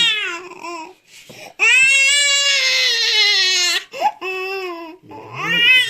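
An infant crying in high-pitched wails: a cry trailing off at the start, one long wail of about two seconds in the middle, then shorter cries starting up again near the end. The baby cries while being massaged.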